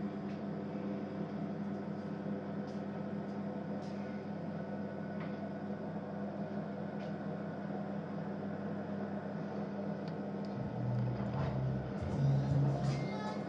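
Electric pottery wheel motor running with a steady hum while clay turns on it, with a few faint clicks. Other pitched tones come in near the end.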